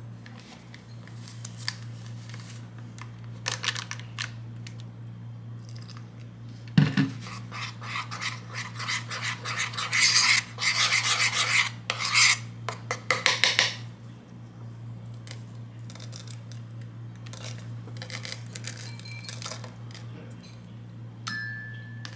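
Metal spoon stirring and scraping against a ceramic bowl, mixing yogurt into a thin batter: rapid clinks and scrapes for several seconds in the middle, after a single knock about seven seconds in. A steady low hum runs underneath.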